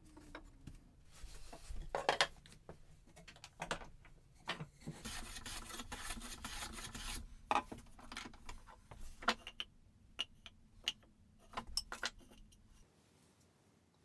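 Hand-tool bench work on a spruce block: scattered wooden knocks and clicks as sticks and tools are handled and set down on the workbench, with a rustling scrape of about two seconds near the middle and a few light metallic clinks.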